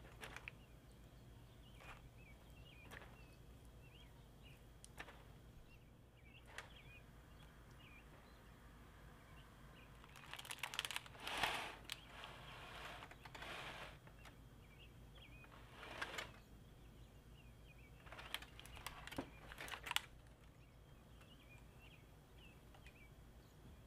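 Quiet kitchen handling sounds: soft rustles of baking paper and light taps and clicks as the roasted leg of lamb is worked on and moved, loudest about ten to twelve seconds in. Faint high chirps come and go throughout.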